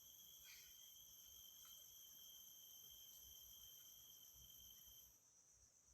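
Faint, steady high-pitched drone of insects in the forest, several tones at once; part of the chorus cuts off about five seconds in.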